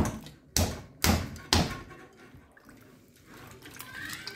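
A lump of wet clay slapped down onto the clay mound on a potter's wheel to fix it in place: four heavy thuds about half a second apart, the first the loudest.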